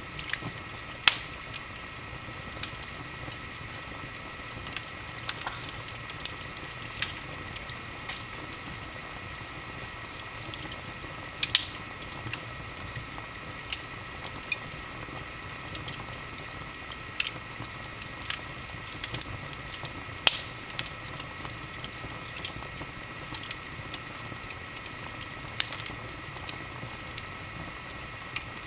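Large open wood fire in a fireplace crackling over a steady hiss, with irregular sharp pops and snaps, a few of them louder.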